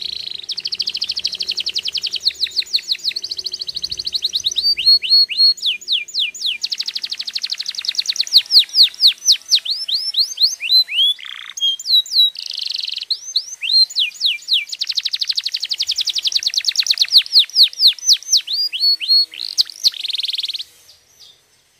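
Domestic canary singing: fast trills alternating with runs of quick downward-sliding notes, with a few short pauses, the song stopping near the end.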